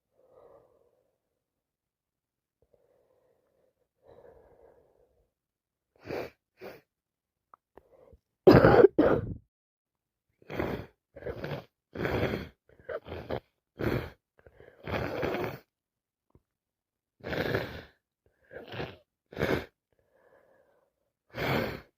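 A woman with a head cold coughing in a long fit: a dozen or more short, hard coughs at irregular intervals, the loudest pair about eight and a half seconds in, after a few faint breaths.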